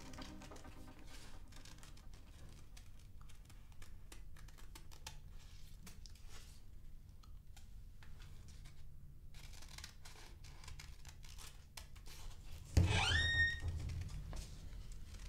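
Soft snips, clicks and rustles of patterned card being cut and handled with scissors. About 13 seconds in, a thump and a short rising squeak as a door is opened.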